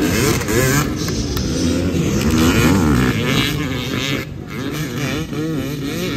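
Several off-road dirt bike engines revving hard as a row of bikes accelerates off a race start, their pitches overlapping and repeatedly rising and falling. The sound dips briefly about four seconds in as the bikes pull away.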